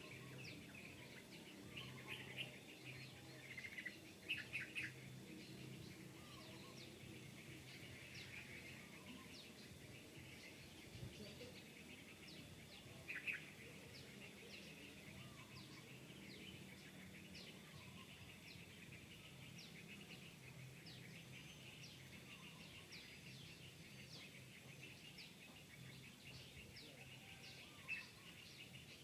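Faint outdoor ambience full of small birds chirping and tweeting in short quick calls. Louder bursts of calls come at about 4 seconds in, again about halfway through, and once near the end.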